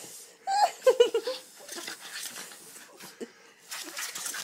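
A person laughing in a quick run of short bursts about a second in, then quieter breathy sounds.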